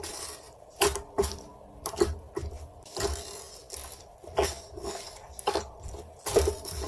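Slime being squished and pressed by hand, making irregular sticky pops and clicks, roughly one or two a second.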